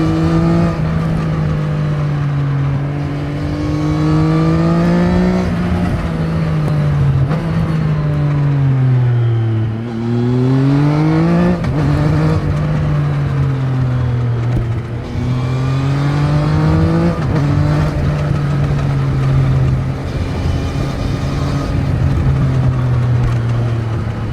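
Triumph Trident 660's inline three-cylinder engine on its stock exhaust, ridden through the gears. The engine note climbs and then drops sharply at each upshift, three times. Near the middle it slows and falls away before picking up again.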